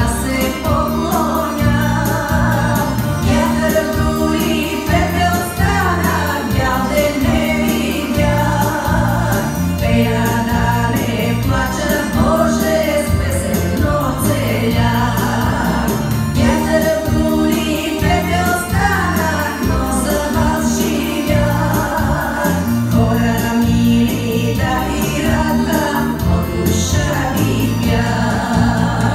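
A woman singing a Bulgarian folk song over instrumental accompaniment with a steady dance beat.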